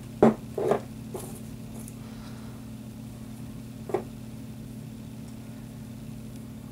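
A few light knocks and clicks of Glock pistol parts and cleaning tools being handled: three in quick succession in the first second, the first the loudest, and one more about four seconds in. A steady low hum sits underneath.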